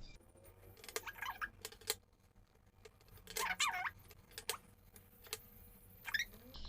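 A kitchen sponge being dipped in gouache paint and dabbed onto paper: scattered light taps and a few brief squeaks.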